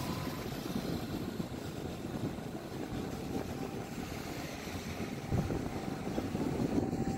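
Wind buffeting the microphone and the tyre rumbling on asphalt while riding a Gotway MSuper X electric unicycle, a steady low rush with a faint thin whine above it that gets a little louder about five seconds in.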